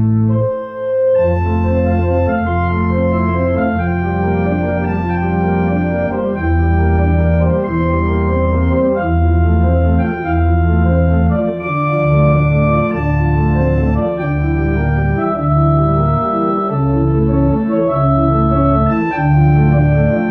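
Two-manual home electronic organ playing a piece: held chords and a moving melody over a bass line that changes note about once a second, with a brief break just under a second in.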